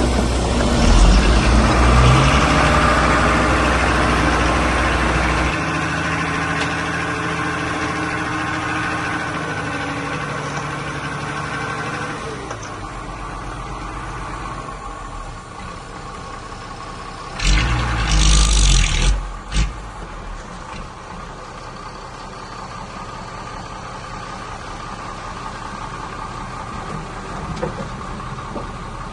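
Diesel engines of heavy earthmoving machinery running, loudest at the start and fading over the first dozen seconds. Past halfway there is a loud rushing burst that lasts about two seconds.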